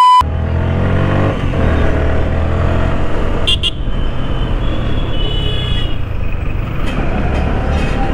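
Yamaha R15 V3's single-cylinder engine running under the rider in town traffic, its pitch climbing in the first second as it picks up speed, with road and wind noise. A vehicle horn toots briefly around the middle, and the tail of a censor bleep ends right at the start.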